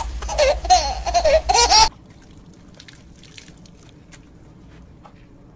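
Loud, high-pitched laughter in quick repeated bursts that cuts off abruptly about two seconds in, followed by a quiet stretch with faint scattered clicks.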